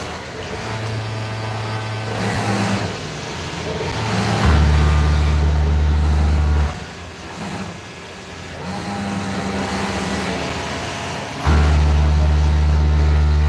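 Industrial sewing machine stitching in two runs of about two seconds each, about four seconds in and again near the end: a loud, steady motor drone that starts and stops abruptly. A steady lower hum of machinery runs underneath.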